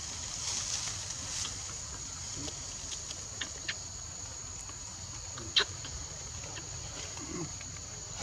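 Steady high insect drone, with scattered small crackles of dry leaves and one sharper crack about five and a half seconds in.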